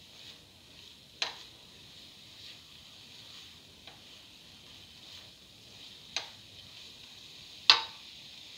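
Ground coconut paste sizzling in a pan with a steady faint hiss while it is stirred with a spatula. The spatula knocks against the pan three times: about a second in, at about six seconds, and near the end, the last knock the loudest.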